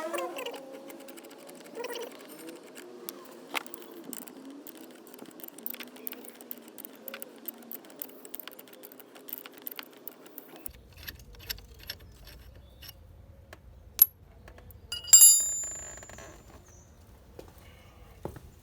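Small metal clicks and clinks of hand tools working on a scooter's front brake caliper as the pad retaining screws are turned out. A sharp click comes about fourteen seconds in, then a single ringing metallic clink that fades over about a second.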